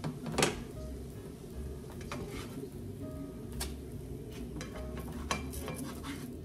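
Spatula stirring and scraping scrambled eggs in a small nonstick frying pan, with a few sharp taps of the utensil on the pan, the loudest about half a second in, over a faint sizzle. Soft background music plays underneath.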